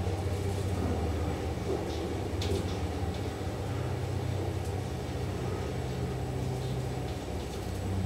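Elevator running: a steady low hum and rumble from its drive, with a few faint clicks. The hum eases off near the end.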